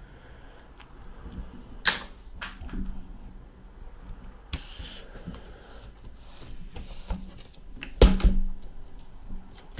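Sealed trading-card boxes being moved and handled on a table: scattered light taps and clicks, a brief scrape a little before the middle, and a louder double knock near the end.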